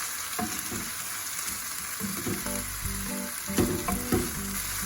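Minced beef and mushrooms sizzling in a frying pan as they are stirred, with two sharp knocks near the end. Background music comes in about halfway.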